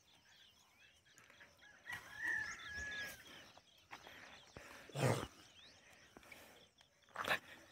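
Faint birds chirping in a rural outdoor background, with a short held call about two seconds in and two brief louder sounds about five and seven seconds in.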